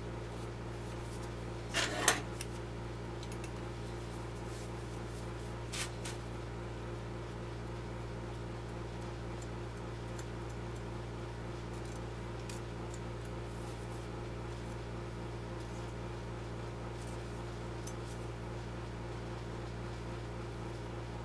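Steady electrical hum, with a short clatter of small hard parts being handled about two seconds in and a lighter click near six seconds.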